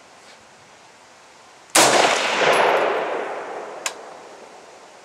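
A single rifle shot from a Stag Arms Model 4 AR-15 firing 5.56 mm/.223 ammunition, coming about 1.75 seconds in, with a long echo that fades over about two seconds. A brief sharp click follows about two seconds after the shot.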